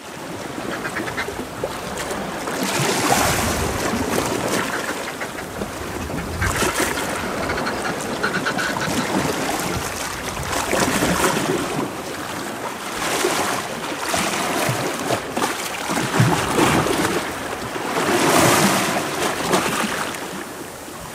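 Sea lapping and gurgling in the gaps of a rocky shore, swelling every two to three seconds, with gulls calling.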